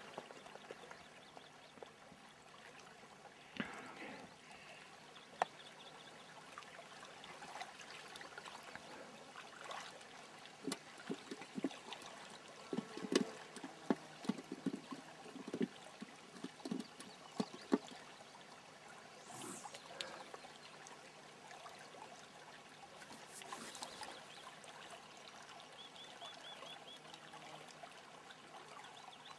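Shallow river water trickling faintly. A run of soft, irregular knocks comes about a third of the way in and lasts several seconds.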